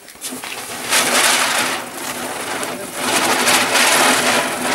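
Ground spinner firework (chakri) burning on concrete, a loud continuous fizzing hiss that builds to full strength about a second in and swells again near the middle.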